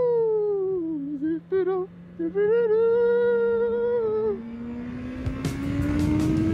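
A man humming a tune, one long note that falls away and then a few shorter ones, over the steady drone of a Honda CBR650R's inline-four engine. Near the end the engine note rises as the bike speeds up, and wind noise grows.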